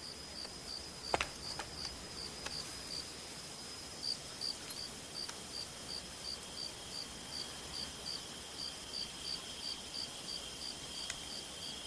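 Faint insect chirping, a cricket-like high chirp repeating evenly about three times a second over a steady high hum, with a few soft clicks, the loudest about a second in.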